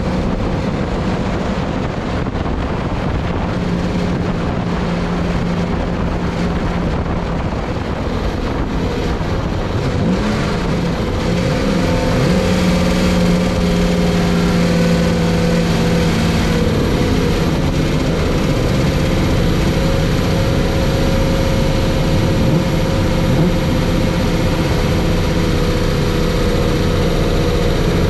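Racing Jaguar XJS V12 engine running hard on track at speed. Near the middle its note wavers and then grows louder and holds steady.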